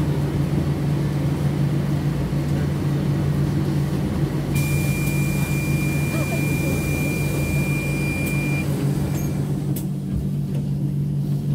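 Cabin of a KAMAZ-6282 electric bus standing at a stop: a steady low electric hum, with one steady high beep lasting about four seconds midway over a hiss that stops about a second after it.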